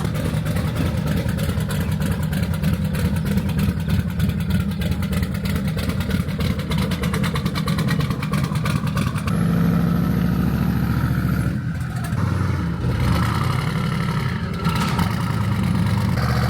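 Chevrolet C10 pickup's engine running steadily with rapid, even exhaust pulses, just after a no-start fault in the reverse switch wiring was fixed. About nine seconds in the sound changes to a steadier, fuller note.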